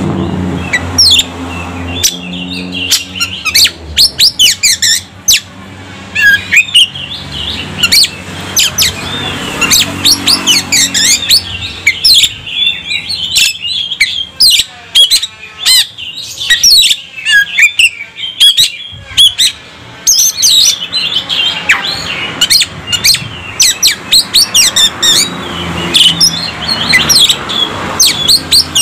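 Oriental magpie-robin (kacer) singing a loud, varied song of rapid chirps, whistles and slurred notes, delivered in fast bursts with a sparser stretch near the middle.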